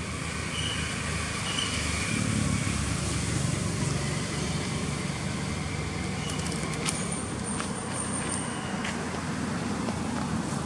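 A motor vehicle's engine running steadily in the background, a low continuous hum, with a few light clicks and a thin high tone for about a second and a half near seven seconds in.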